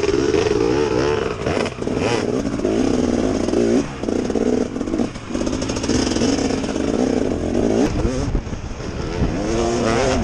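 Dirt bike engine running under varying throttle, its pitch rising and falling as it revs and eases off, with a few knocks from the bike jolting over rocks.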